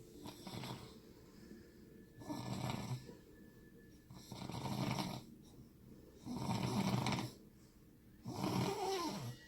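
A man snoring in his sleep: four long snores about two seconds apart, with quieter breathing between them.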